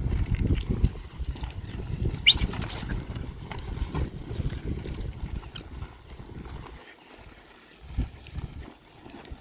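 Cows pulling a plough through a field: uneven low rumbling and scuffing of hooves and the plough working the soil. A brief rising squeak sounds about two seconds in, and things go quieter near the end.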